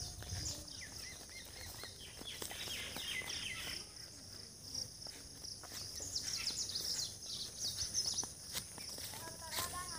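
Outdoor ambience of birds chirping in clusters of quick repeated notes over a steady high-pitched insect drone.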